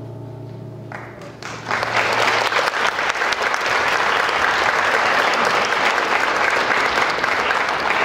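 A held chord on the keyboard at the start, fading out. About a second and a half in, audience applause and clapping take over and keep on loud.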